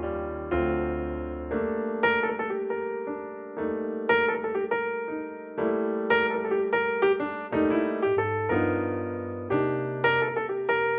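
Background piano music: notes struck one after another over sustained lower chords, each note fading after it is played.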